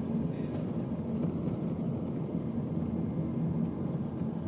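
Steady engine and road noise of a moving vehicle, heard from inside the cab.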